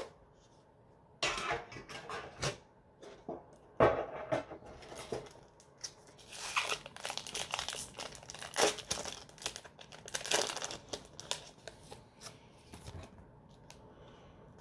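Foil trading-card booster pack being torn open and its wrapper crinkled by hand: irregular crackling and tearing, busiest in the middle.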